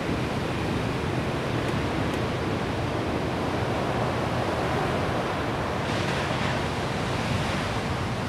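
Ocean surf breaking: a steady wash of crashing waves, swelling a little brighter about six seconds in.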